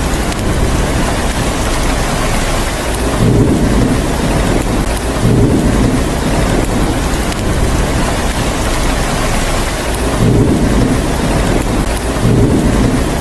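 Steady heavy rainfall with low rumbles of thunder swelling up about four times.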